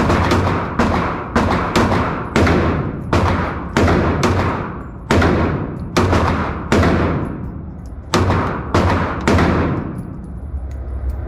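Handguns firing a string of single shots at the shooter's own pace, about one to two shots a second, each sharp crack followed by a short ringing echo.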